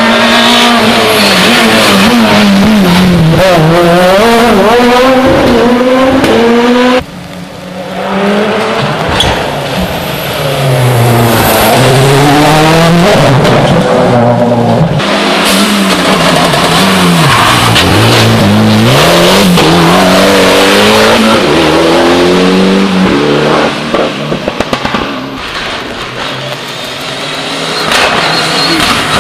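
Rally cars driven flat out on a special stage, engines revving hard with the pitch climbing and dropping sharply at each gear change as they pass close by. The sound cuts off abruptly about seven seconds in before the next car is heard.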